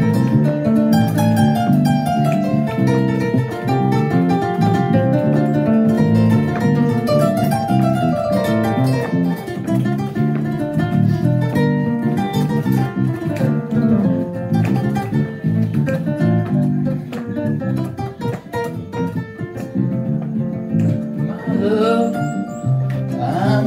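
Kora plucked in a flowing, repeating melodic pattern, with an electric bass playing low notes underneath.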